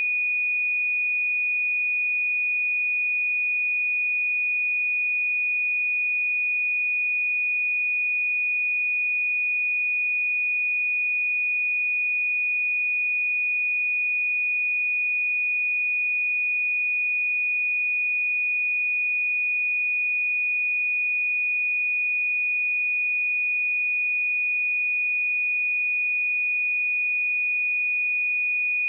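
A pure 2466 Hz sine-wave test tone, one steady high-pitched pitch held at an even level, used for testing speakers and headphones.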